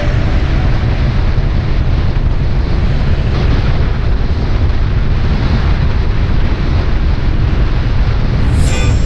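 Loud, steady wind rush over the camera microphone on a motor scooter riding at speed, a low rumbling roar that hides the engine. A short crackle near the end.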